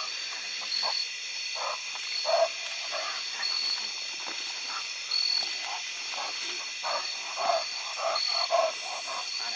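Night insect chorus, a steady high buzz with a brighter pulsing note recurring about every second or so. Short, irregular, lower sounds come and go through it.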